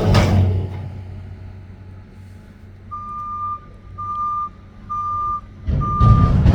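Mack McNeilus front-loader garbage truck: its engine is loud at first and dies down, then its reversing alarm beeps four times, about once a second. The engine noise rises loudly again near the end.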